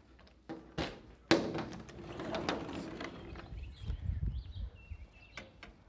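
A few sharp knocks and handling thumps, then outdoor background with a low rumble of wind on the microphone and a few faint bird chirps.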